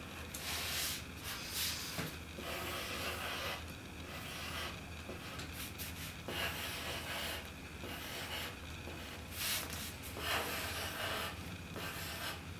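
Pencil scratching across paper in short, uneven drawing strokes: a dry rasp that comes and goes every second or so, over a faint steady low hum.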